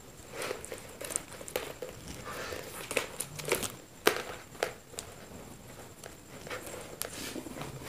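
Flat plastic basket-weaving wire rustling and clicking as hands pull strands through and tighten knots, with irregular sharp ticks, a few louder ones about halfway through.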